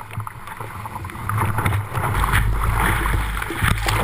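Whitewater rushing around a kayak, with spray and drops ticking against the bow-mounted camera's housing. It grows louder about a second and a half in, and from about two seconds in a deep rumble of water pounds over the boat and the microphone.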